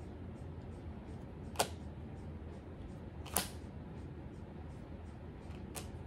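Tarot cards being handled on a table: two sharp snaps about a second and three-quarters apart, then a fainter one near the end, over a low steady hum.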